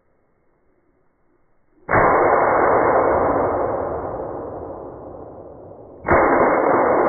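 Two gunshots from a hunting gun about four seconds apart, the second near the end. Each is a sudden loud report followed by a long echo that dies away over a few seconds.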